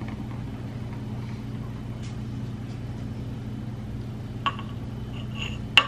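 Thick berry smoothie poured from a blender jar into a drinking glass, with a couple of light glass clinks in the second half, over a steady low hum.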